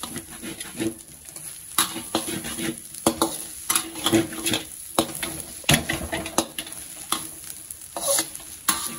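Flat metal spatula scraping and tossing fried rice around a stainless steel wok, irregular scrapes and knocks over the sizzle of the rice frying.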